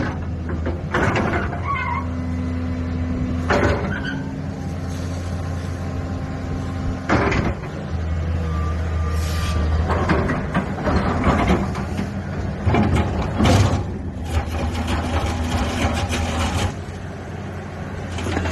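LiuGong 925D excavator's diesel engine running steadily under hydraulic load with a whining pump tone, as the boom, arm and bucket move. Short hissing, squealing bursts come every few seconds.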